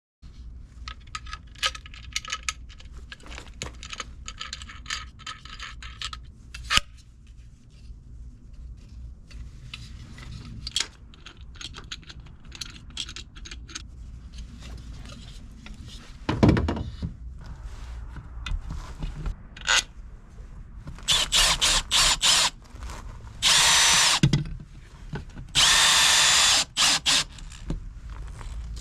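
Light clicks and handling of parts, a single loud knock about halfway through, then a power drill run in several short bursts with its motor whining, driving screws to fix a wall-mounted rack.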